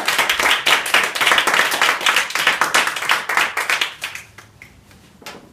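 A small audience clapping by hand, dense at first and dying away about four seconds in, with a few last single claps.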